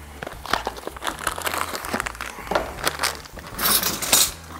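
A thin plastic bag crinkling as it is handled: a run of irregular crackles, loudest a little before the end.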